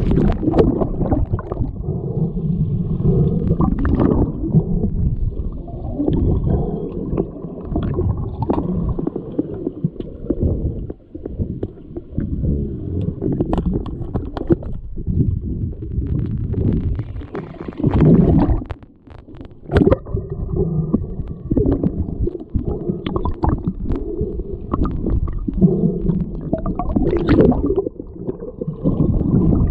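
Muffled underwater sound of an underwater hockey game in a pool, heard through a camera's waterproof housing: a continuous low rumbling and gurgling of water and bubbles, with sharp clicks and knocks scattered throughout.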